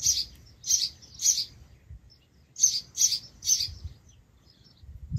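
A bird chirping in short, high, repeated notes, in runs of three about a third of a second apart, with a pause of about a second between runs.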